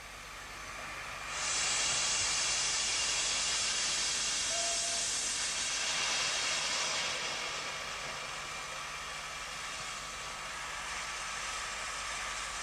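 Steam locomotive venting steam: a steady hiss that swells up about a second in and eases off somewhat after about seven seconds.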